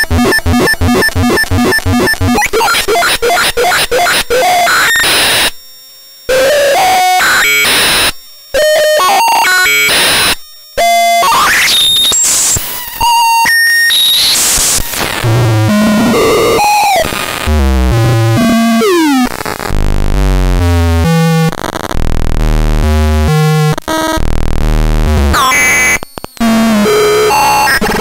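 Homemade circuit-bent noise synthesizer with a step sequencer, VCO and LFO, putting out loud, harsh chiptune-style noise. It starts as fast stepping clicks and buzzes that cut out suddenly a few times, moves into rising and falling pitch sweeps, and ends in a stepping sequence of low blips.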